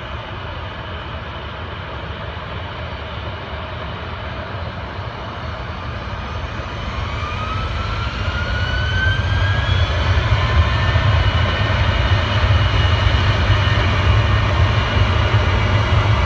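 Jet airliner engines growing steadily louder, with a whine that rises in pitch about halfway through and then holds steady over a deep rumble.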